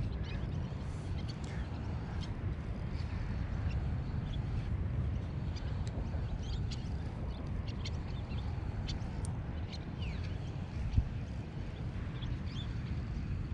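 Outdoor shoreline ambience: a steady low rumble with scattered short bird calls, and one sharp knock about eleven seconds in.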